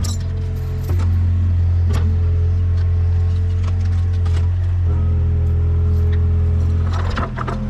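Excavator's diesel engine running steadily, with a few sharp knocks, most of them near the end.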